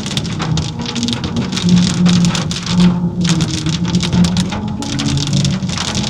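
Heavy rain pattering and dripping on surfaces, a dense crackle of drops that thins out briefly about three seconds in and again near five seconds, with low steady tones underneath.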